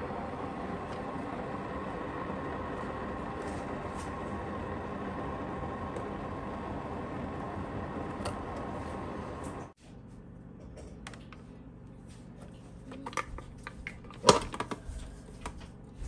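A steady mechanical hum that cuts off abruptly about ten seconds in. Then small plastic clicks and rattles as a K-cup pod is handled in a Keurig coffee maker, ending in one loud plastic snap near the end as the brewer's lid is shut and the pod is pierced.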